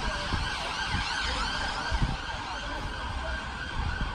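An emergency vehicle's siren wailing, over a low, gusty rumble.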